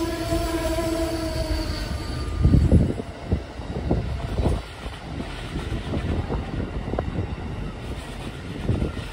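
Amtrak passenger train rushing past, its cars rumbling by. A held pitched tone sounds over it and stops about two seconds in. After that come irregular low thuds and rumble.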